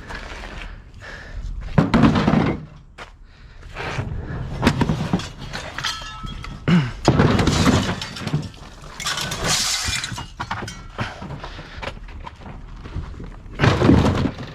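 A run of irregular crashes and thuds with breaking sounds, as of scrap and junk being thrown or dumped onto a pile.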